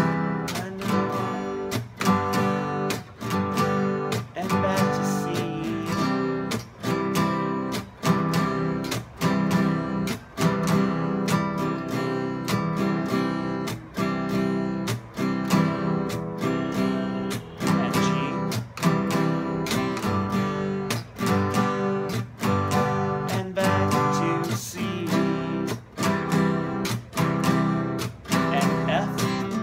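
Acoustic guitar strummed in an even, steady beat, each strum ringing into the next as a beginner's strumming exercise, starting on a G chord.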